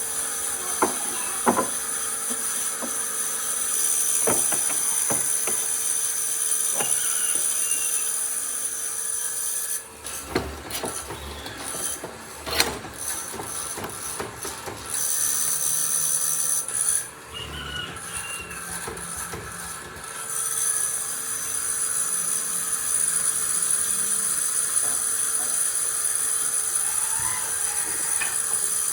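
A power tool running on wood, with scattered knocks and taps. It cuts out briefly twice and starts again.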